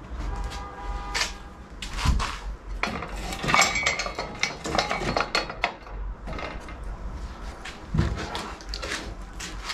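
Hand tools and their holders clattering and knocking as they are hung onto French cleat rails, with irregular knocks throughout. Metal clinks ring briefly in the first second or so and again about three and a half seconds in.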